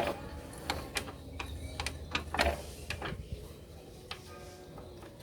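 Irregular metallic clicks and knocks of hand work on an opened motorcycle engine's valve gear (rocker arms and timing), thinning out after about three seconds.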